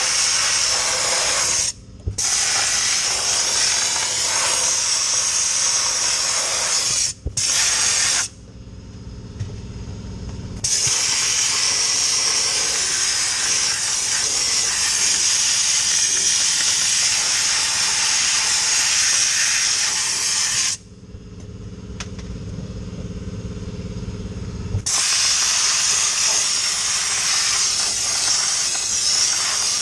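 Dry ice blasting gun spraying a loud, steady hiss of compressed air and dry ice pellets. The trigger is let off for an instant twice early on, then for a few seconds about a third of the way in and again about two-thirds in. During those pauses only a lower machine hum is left.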